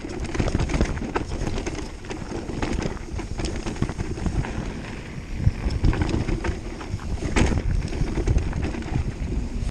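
Mountain bike descending a dirt trail at speed: wind buffeting the microphone over the rumble of knobby tyres on dirt and loose stones, with frequent sharp rattles and clicks from the bike as it runs over rough ground.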